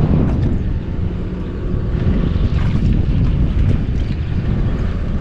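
Wind buffeting the microphone: a loud, steady, rough low rumble.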